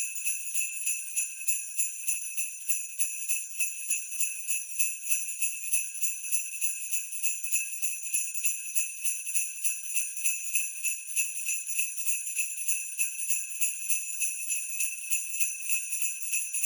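Sleigh bells shaken in a steady rhythmic loop at 90 beats per minute, a bright jingle at about three shakes a second.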